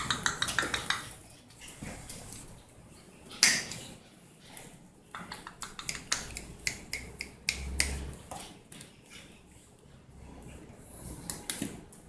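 Pug puppies moving about and playing on a hard surface, making a run of irregular sharp clicks and taps, the loudest about three and a half seconds in.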